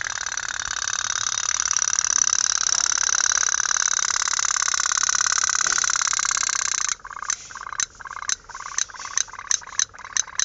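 Tin pop-pop (putt-putt) toy steam boat running, its boiler heated by a burning camphor flame: a rapid continuous putting buzz, which about seven seconds in breaks into separate sharp pops, a few a second.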